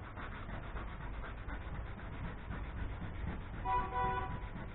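Sandpaper on a hand sanding block rubbing back and forth over an old fiberglass boat hull's gelcoat, in repeated strokes. Near the end a brief whine with a clear pitch cuts in over the rubbing and is the loudest sound.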